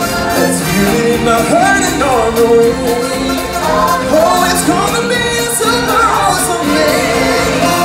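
Stage-show music with singing voices over a band backing and percussion.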